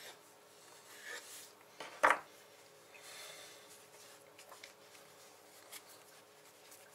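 Faint rubbing and handling sounds of a knife and soft dough on a kitchen countertop as dumplings are cut from a filled dough roll and pinched shut by hand, with one sharp knock about two seconds in.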